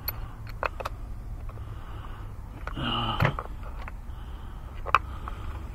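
Scattered light metallic clicks and taps of a swivel socket on an extension knocking about in a spark plug well as it is worked onto the plug. About three seconds in, a short breathy grunt.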